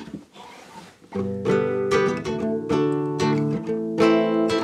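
Classical guitar strummed in a steady rhythm of chords, starting about a second in.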